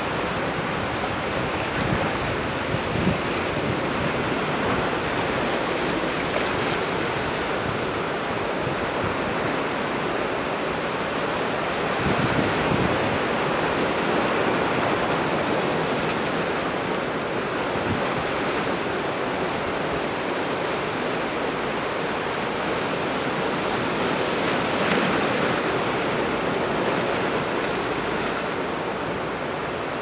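Steady rushing noise of wind and waves, swelling a little now and then.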